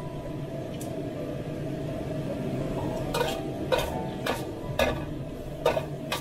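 Stir-frying green beans and dried chillies: a metal spatula scrapes and tosses them around a steel wok, with a string of scrapes about every half second from about three seconds in. Under it runs a steady low sizzle of the beans frying.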